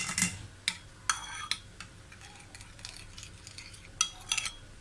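Spoon clinking and scraping against a strainer and bowl while cooked garlic is mashed to press the oil out. Sharp ringing clinks come around the first second and again near the end, with quieter scraping between.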